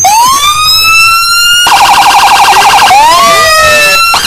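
Electronic police sirens sounding loud and close. A wail sweeps up in pitch and holds, switches about a second and a half in to a rapid pulsing tone for about a second, then winds up again while a second siren falls in pitch.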